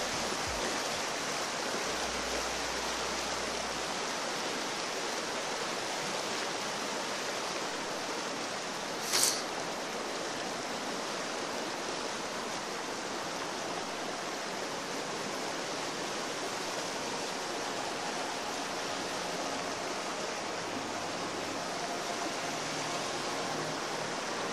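Fast mountain river rushing over rocks: a steady, even rush of water. About nine seconds in, a brief high-pitched swish.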